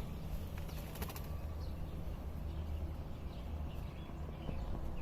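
Faint, scattered bird chirps over a steady low hum, with a few clicks about a second in.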